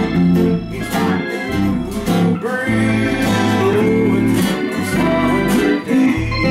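Acoustic guitars strumming a gospel hymn together in a steady rhythm.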